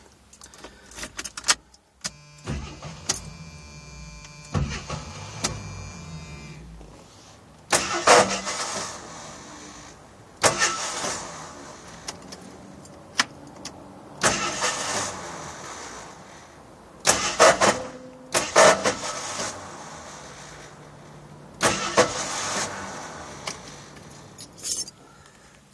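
AMC Eagle engine being cranked by its starter in several attempts that fail to start it. It mostly just spins, now and then catching briefly before dying again.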